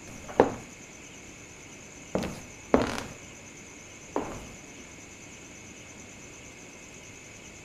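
Four loud knocks or thuds, irregularly spaced, each with a short ringing tail: one about half a second in, two close together around two to three seconds in, and a softer one around four seconds in. A steady high-pitched hiss runs underneath.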